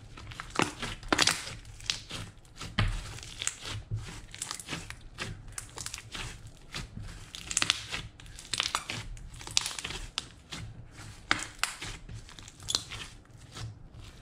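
Thick glittery blue slime, mixed with clay and makeup, being stretched, folded and pressed by hand: irregular crinkly clicks and crackles, coming in clusters, the loudest about a second in.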